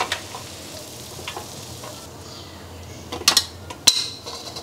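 A metal spatula scraping and clinking against a wok and a stainless steel tray as stir-fried pork and green beans are pushed out onto noodles. Small clinks throughout, then a few sharp clanks near the end, the last ringing briefly.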